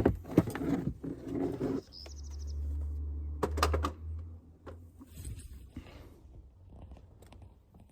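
Plastic trim parts clicking and rattling as a cover in a car's footwell is worked loose and pulled out, with a cluster of sharp clicks at the start and again about three and a half seconds in. A low steady hum runs underneath for about two seconds in the middle.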